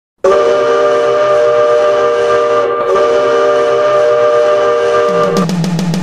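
A made-up ice hockey goal horn: one loud, steady, chord-like horn blast lasting about five seconds, with a slight hitch about halfway. It cuts off as a goal song comes in with a quick, even drum beat and a low note.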